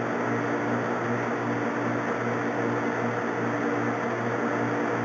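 Metal lathe running steadily while a chamber reamer is fed into a rifle barrel to cut the chamber. It makes a constant motor hum with a low tone that pulses about twice a second.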